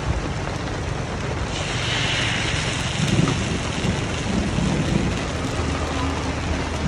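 Coconut-cake batter sizzling in the wells of a hot cast-iron pan, a steady hiss over a low rumble. The hiss brightens for about a second around two seconds in.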